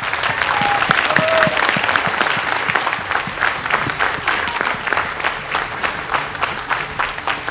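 Studio audience applauding, a dense, steady clapping, with a couple of brief high calls about a second in.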